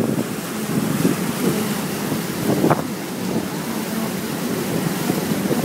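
Wind buffeting the microphone over the steady rush of a boat's churning wake.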